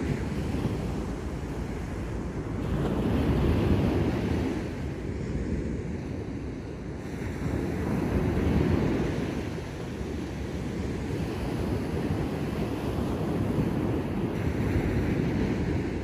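Ocean surf breaking on a beach: a continuous wash of waves running up the sand and drawing back. It swells louder about three and a half seconds in, again around eight and a half seconds, and near the end.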